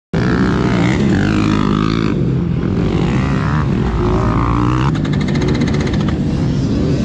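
Dirt bike engine running, its revs rising and falling.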